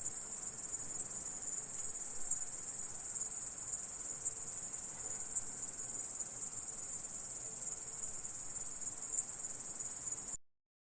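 Insect stridulation: a steady, dense, high-pitched chirring that starts abruptly and cuts off suddenly near the end.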